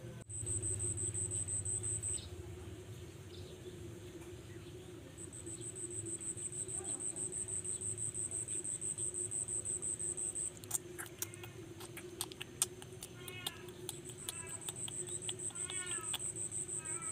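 An insect trilling in a high, steady buzz that pulses rapidly, in three long spells with short breaks between. In the second half a bird chirps repeatedly, and there are a few sharp clicks.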